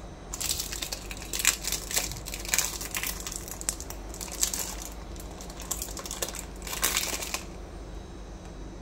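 Close crinkling and crunching rustles in irregular bursts, which stop a little over seven seconds in.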